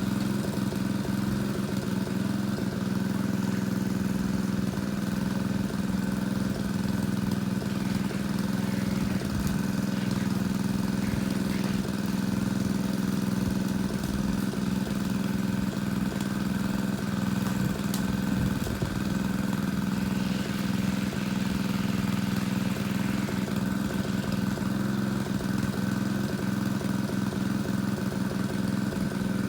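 Engine-driven water pump running steadily at one constant speed while pumping water out of a pond.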